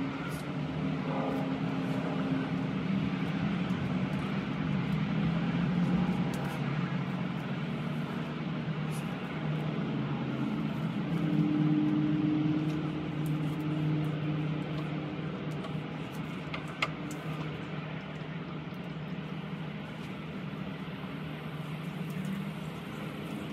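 Steady low hum of a motor vehicle engine running, swelling a little twice, with one sharp click about two-thirds of the way through.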